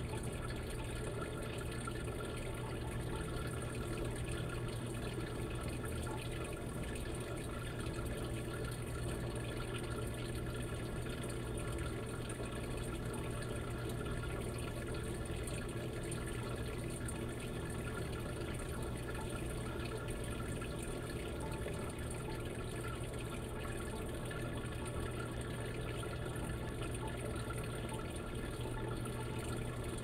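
Insignia washing machine with water running steadily into its tub during the wash cycle, over a low steady hum, with no pauses.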